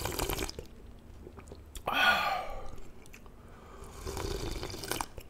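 A person slurping and swallowing jjamppong broth straight from the bowl, with a louder slurp about two seconds in.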